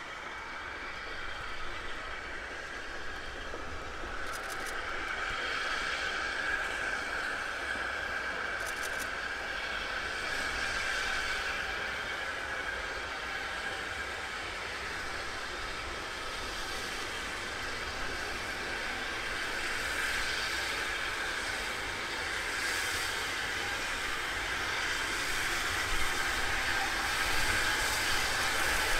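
Steam train at a station: a steady hiss of steam with a wavering whistle-like tone in it, as a steam locomotive approaches slowly and grows louder near the end.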